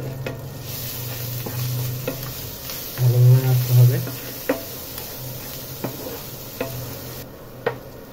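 A wooden spoon stirs and scrapes a paste of ground spices and onion frying in hot oil in a non-stick pan. The oil sizzles steadily, the spoon knocks against the pan now and then, and there is a louder stretch of scraping about three seconds in.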